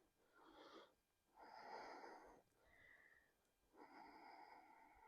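Near silence with three faint, slow breaths from a person holding a yoga pose.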